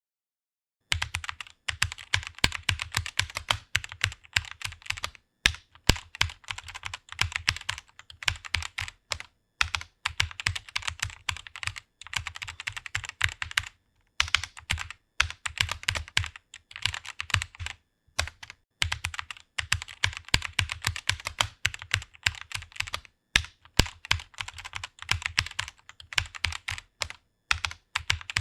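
Typing on a computer keyboard: rapid runs of key clicks starting about a second in, broken by brief pauses every four or five seconds.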